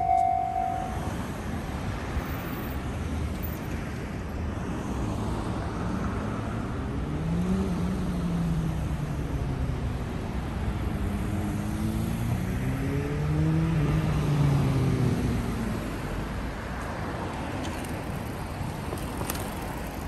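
Road traffic on a seaside road: a steady hum of cars, with engine and tyre noise rising and then falling in pitch as vehicles pass in the middle stretch. A steady tone cuts off about a second in.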